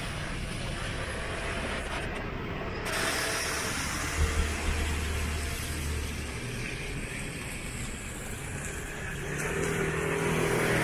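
Street ambience in rain: a steady hiss of rain and wet pavement, with a small truck's engine running close by for a couple of seconds about midway.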